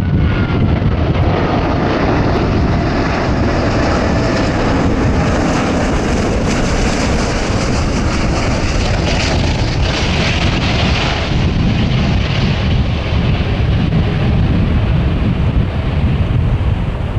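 Airbus A380 airliner on final approach passing low overhead: the loud, steady rumble of its four jet engines, with a high whine that slides down in pitch in the first couple of seconds as it goes by.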